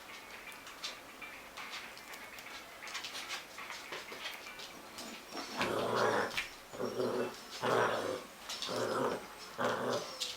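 A dog barking five times, about a second apart, after a few seconds of faint clicks and taps.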